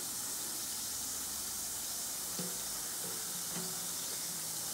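Bikkura Tamago bath bombs fizzing steadily in a basin of warm water, a constant high hiss as they dissolve and release gas.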